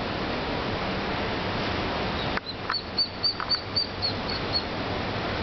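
Ducklings peeping: a quick run of about eight short, high peeps, starting a little before halfway through, over a steady background hiss.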